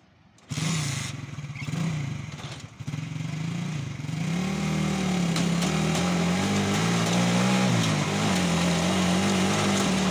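An engine starts suddenly about half a second in, its pitch wavering for a few seconds before it settles into a steady run. This is the start-up of a flour mill's Belarus tractor engine, which is turned over by a motorcycle rickshaw.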